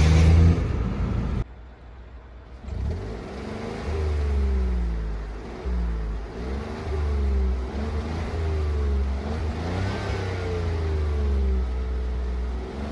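Škoda Fabia 3 1.0 MPI three-cylinder petrol engine running. It is loud at first, drops off suddenly about a second and a half in, then picks up again with its pitch rising and falling over and over. The car has a stiff, failing clutch release bearing that rattles at idle and under acceleration in the lower gears.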